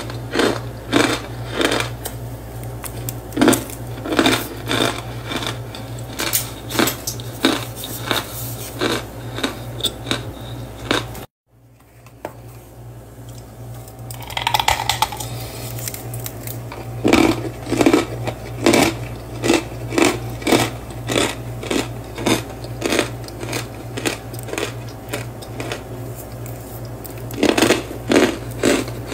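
Blocks of cornstarch mixed with baking powder being crushed, a rapid run of soft, squeaky crunches about two a second. The crunching breaks off for a moment about eleven seconds in, is quieter for a few seconds, then picks up again, over a steady low hum.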